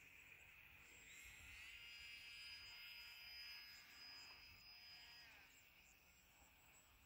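Faint high-pitched whine of the Opterra RC flying wing's electric motor and propeller, rising in pitch as the throttle opens about a second in, holding steady, then dropping away about five seconds in. A faint steady insect hum runs underneath.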